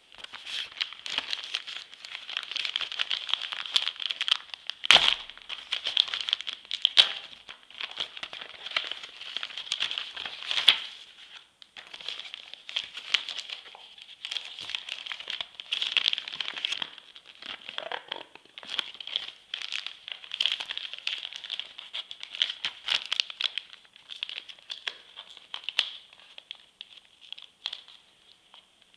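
A mailing package being pulled and torn open by hand: continuous crinkling and tearing of its wrapping, with sharper snaps about five, seven and ten seconds in, as the package resists opening.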